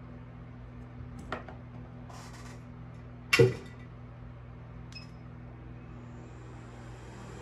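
Workbench handling sounds: a light click, then a single loud clack about three and a half seconds in and a small click a little later, over a steady electrical hum. Near the end the faint hiss of a hot air rework gun starts to blow.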